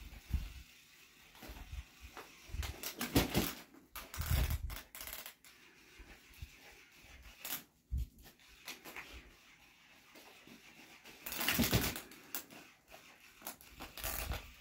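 A small dog scuffling on carpet as it tugs and shakes a plush toy tied to a rope, making irregular rustles and dull thumps. The loudest flurries come about three to four seconds in and again around twelve seconds.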